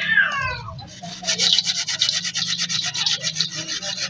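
Dry, gritty clumps being crushed and crumbled by hand in a steel bowl: a dense run of fine crackling and rasping grit from about a second in. At the very start the tail of a wavering animal call fades out.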